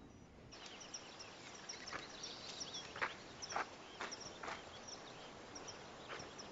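Quiet outdoor ambience with small birds chirping over and over, and a few footsteps on a dirt path coming at uneven intervals.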